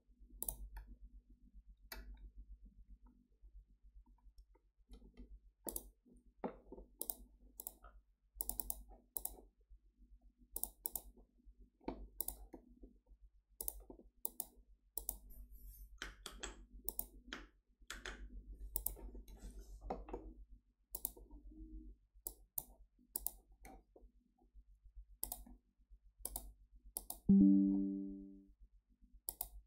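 Computer mouse clicking repeatedly in short irregular runs. Near the end a Windows system chime sounds once and fades, as the USB drive is ejected.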